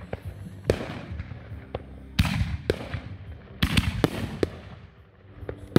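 Aerial fireworks bursting: a string of about eight sharp bangs at uneven intervals, the loudest about two seconds in and just before four seconds, each trailing off in a short echo.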